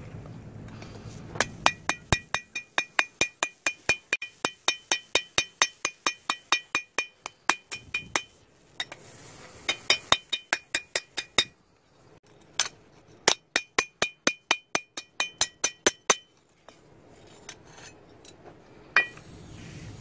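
Hand hammer striking a hot knife blade on an anvil, forging steel from a plow part: quick runs of ringing blows, about four or five a second, in three bursts with short pauses and a single blow near the end.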